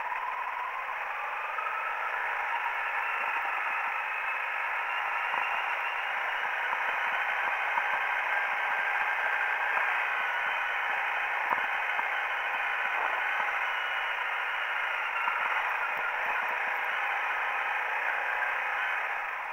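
Honda CRF250L's single-cylinder four-stroke engine running under way on a bumpy dirt track. It sounds thin and narrow, with the lows and highs missing, its pitch drifting slowly up and down with the throttle, and small knocks from the rough ground.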